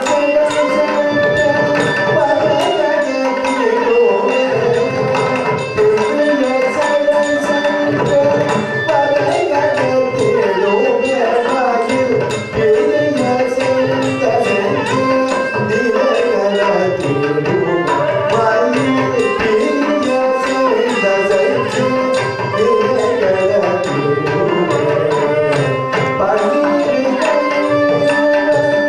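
Live Carnatic music accompaniment for classical dance: a violin melody over hand-drum strokes keeping a steady beat.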